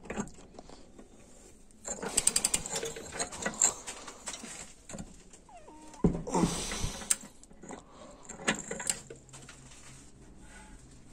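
Socket ratchet clicking in quick runs as a bolt on the transmission is tightened, with scattered metallic clicks and clatter between runs and a louder clunk about six seconds in.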